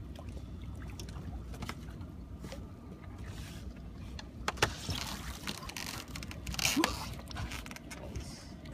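Splashing at the surface beside a small boat as a hooked redfish is brought alongside and scooped into a landing net, with two louder splashes midway and about two seconds later. Steady low wind and water noise runs underneath.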